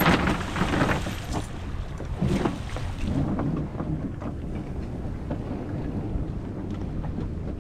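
Wind buffeting the microphone over waves washing against a boat's hull. A splash right at the start as the fish goes over the rail into the water.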